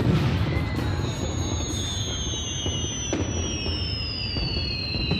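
Fireworks going off: a dense crackle and rumble with a few sharp pops, and a thin whistle that slowly falls in pitch from about a second in.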